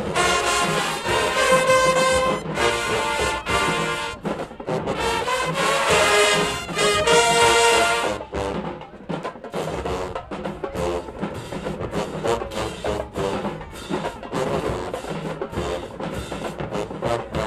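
Marching band playing: brass and sousaphones over a drumline. About eight seconds in the horns fall away and the drums carry on with a driving beat.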